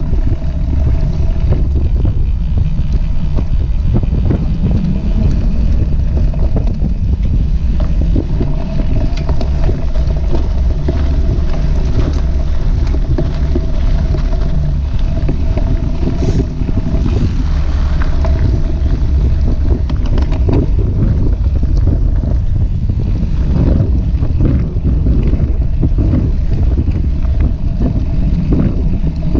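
Wind rushing over the microphone of a bike-mounted action camera as a mountain bike rolls along a dirt trail, steady and loud, with tyre rumble and scattered knocks and rattles from the bike over rough ground.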